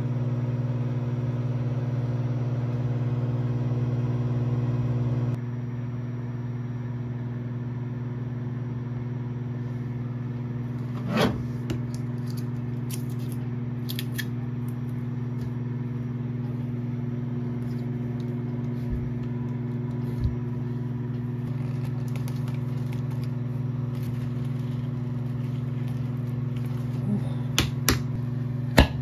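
Microwave oven running with a steady hum. About five seconds in, the hum drops to a quieter steady hum, with a few clicks and knocks from a glass jar being handled. The sharpest knock comes near the end.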